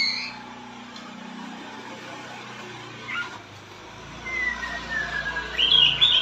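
Caged white-rumped shama (murai batu) singing: a sharp high note at the start, a brief note about three seconds in, then a long falling whistle and a loud burst of quick high notes near the end.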